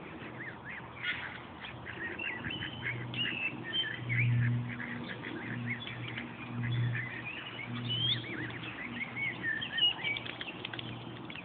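Many high, short bird peeps and chirps in quick succession, from the waterfowl and young birds gathered at the water's edge. Under them a low hum swells and fades several times, loudest about four seconds in.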